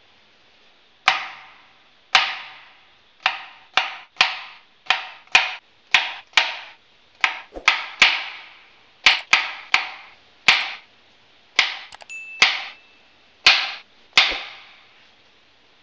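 Chef's knife chopping cucumber on a wooden cutting board: about twenty sharp knocks of the blade through the cucumber onto the board, unevenly spaced from about a second in, each ringing briefly.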